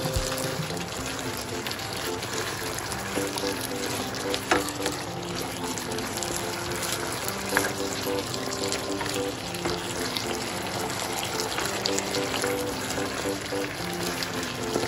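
Beef and bamboo shoots in sauce sizzling and bubbling in a frying pan, with a few faint clicks. Background music plays a slow melody over it.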